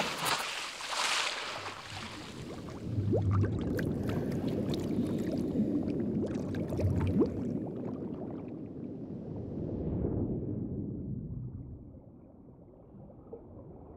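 Water splashing as the divers go in, then a muffled underwater churn of bubbling and gurgling that fades away about ten seconds in.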